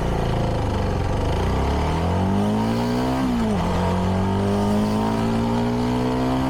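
CFMoto 300NK's single-cylinder engine on its stock exhaust, accelerating hard at high revs. The pitch climbs, drops sharply at an upshift about three and a half seconds in, then climbs again through the next gear.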